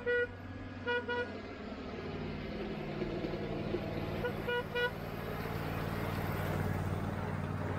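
Horn of a 7.5-inch-gauge riding-scale diesel-outline locomotive: two short toots, then a quick triple toot about four seconds in, over the steady low hum of the locomotive's motor, which grows louder as the train approaches.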